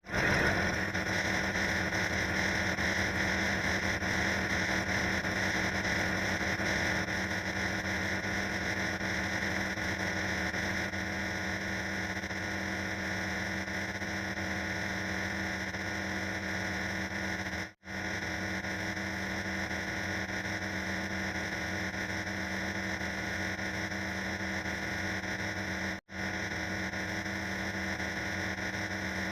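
A dense, harsh wall of steady noise with several droning tones held underneath, cutting out for an instant twice in the second half.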